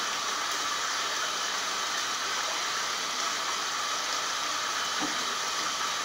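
Steady rushing hiss of water running into a bathtub, even throughout.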